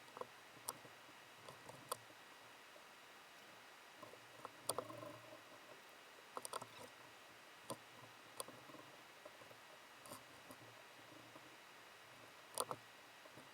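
Sparse, irregular light clicks and taps of parts and tools being handled, against quiet room tone, with the sharpest knocks about a third of the way in and near the end.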